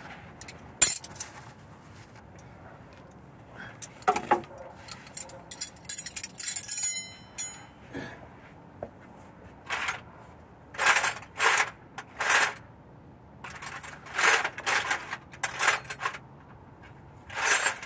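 Metal sockets and hand tools clinking and rattling as they are sorted through in search of a 13 mm hex socket. A sharp clink comes about a second in, a small metal piece rings briefly around seven seconds, and from about ten seconds there is a run of short rattling scrapes.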